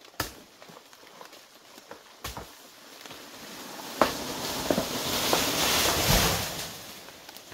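Two dull thumps, then a rustling of leafy undergrowth that swells over a few seconds, peaks and dies away.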